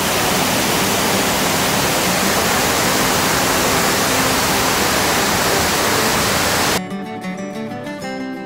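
Mesa Falls, a large waterfall, giving a loud steady rush of falling water, with soft music underneath. About seven seconds in the water sound cuts off suddenly, leaving only plucked guitar music.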